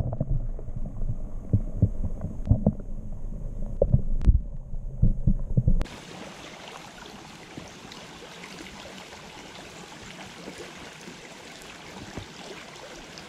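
Muffled, irregular thumps and sloshing of a hand and camera moving in creek water, heard with the microphone underwater. After about six seconds the sound changes abruptly to the steady rush of a shallow creek riffle, heard in open air.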